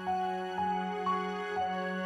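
Soft background music: a gentle melody with a new note about every half second over a held low note.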